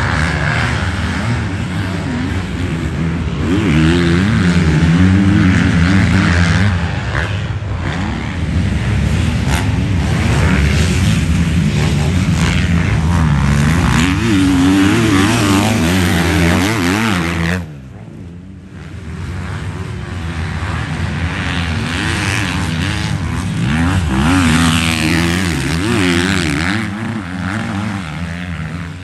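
Motocross bikes racing close together through sand corners, their engines revving up and down as the riders roll on and off the throttle. About two thirds of the way in, the sound drops off suddenly, then the engines pick up again.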